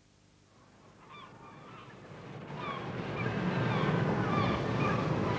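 Honking bird calls over a swelling wash of surf-like noise, fading in from near silence and growing steadily louder, with the calls coming thick and fast from about a second in.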